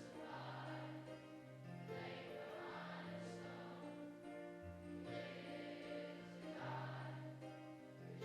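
Religious song sung by a group of voices over instrumental accompaniment, with held notes that change pitch every second or so.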